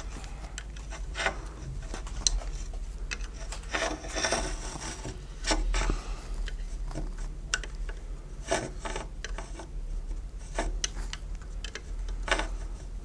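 Crochet hook and yarn scraping and rubbing against the pegs of a knitting loom as loops are lifted over them, in irregular short scrapes and clicks. A low steady hum runs underneath.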